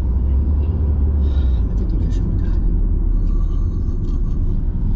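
Steady low rumble of engine and tyre noise inside a moving car's cabin, easing slightly about a second and a half in.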